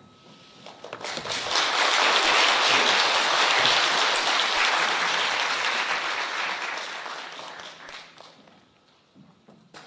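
Audience applauding. It starts about a second in, swells quickly, holds, and dies away near the end.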